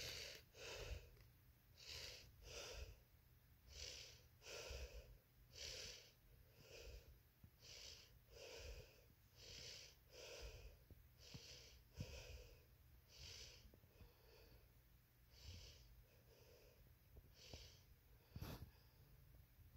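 Faint breathing close to the microphone: slow, steady in-and-out breaths, a pair about every two seconds, with one small click near the end.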